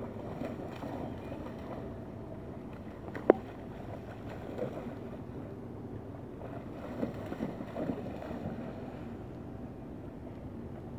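Steady rush of river water, with irregular splashing as a dog swims and wades through it. A single sharp click sounds about three seconds in.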